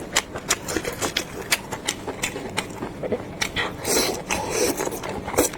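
Close-miked chewing of a piece of meat: a quick, irregular run of wet mouth clicks and smacks, with a longer rustling stretch about four seconds in.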